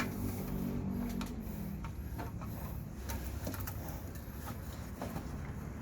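Faint, scattered small clicks and taps of hand tools and metal parts being handled, over a low steady background hum.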